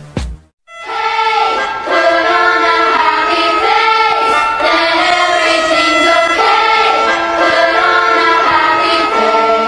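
Background song with a high-pitched singing voice carrying the melody, starting after a brief gap near the beginning.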